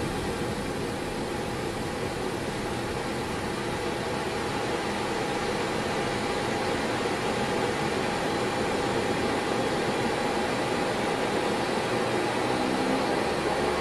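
Shorts 360's Pratt & Whitney PT6A-65R turboprop engines running at low power, heard from inside the cockpit as a steady rushing noise. It grows a little louder as the propellers come out of feather and speed up.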